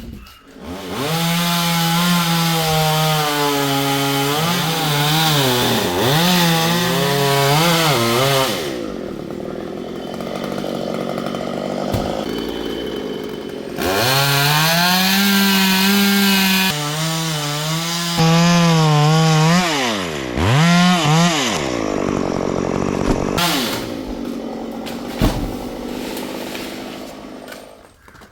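Two-stroke chainsaw cutting wood. The engine runs at full throttle, its pitch sagging and recovering as the chain bites. It drops back to a lower level about nine seconds in, revs up to cut again about fourteen seconds in, then eases off and stops near the end.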